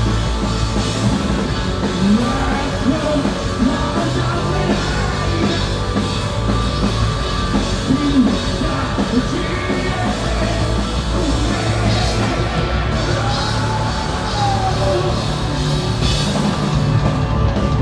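Live rock band playing loud and steady: electric bass, electric guitars and a drum kit, with some singing and yelling in the mix.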